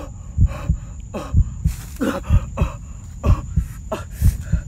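A boy giving short, falling groans and grunts, as if stabbed in the stomach, over a run of dull low thumps.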